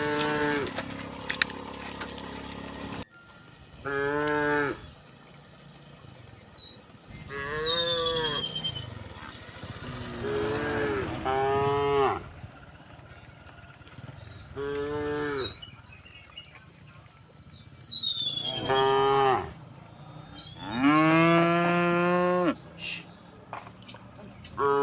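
Cattle mooing again and again: about eight long, drawn-out moos a few seconds apart, the longest near the end. Birds chirp faintly between the calls.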